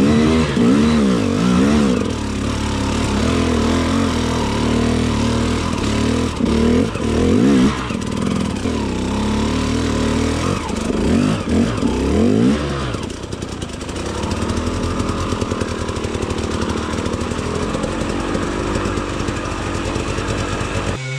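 Two-stroke enduro motorcycle engine revving hard, the revs swooping up and down quickly for the first dozen seconds, then running more steadily and a little quieter.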